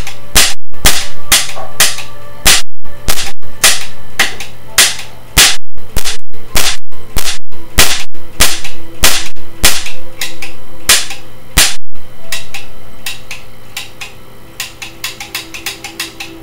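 Orange plastic toy cap gun firing caps in rapid succession: sharp, very loud cracks, about two a second. About twelve seconds in, the loud cracks stop and only much fainter clicks and pops follow.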